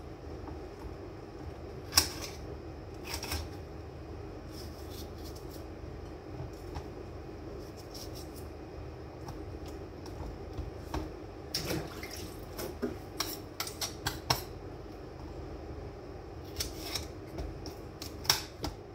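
Kitchen knife slicing a bell pepper on a cutting board: irregular sharp taps of the blade on the board, in a quick run about two-thirds of the way through, over a steady background hum.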